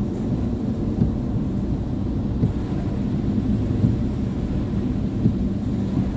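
Steady low rumble of a car driving on a wet road, heard from inside the cabin: engine and tyre noise.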